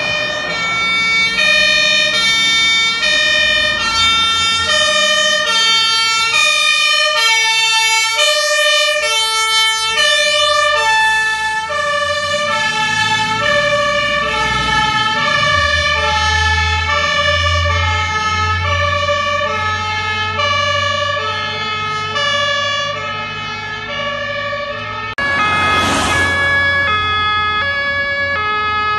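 Two-tone sirens of several fire engines on an emergency run, alternating high and low and overlapping out of step with each other. A diesel truck engine rumbles past in the middle, and a sudden loud blast comes in near the end.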